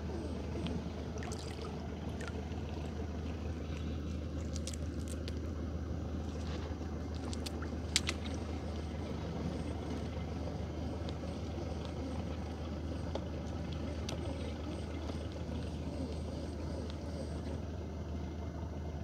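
Small boat's engine running steadily at low speed, with a few light clicks and knocks and one sharper knock about eight seconds in.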